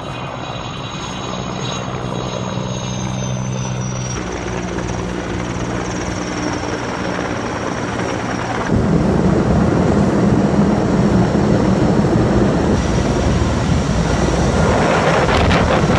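Helicopter running with a steady engine and rotor sound. It changes abruptly twice, about four and about nine seconds in, and is louder after the second change.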